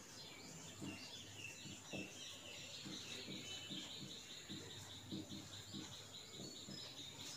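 Faint strokes of a marker writing on a whiteboard. Through the middle and latter part there is a faint high chirping, repeated evenly several times a second, that stops near the end.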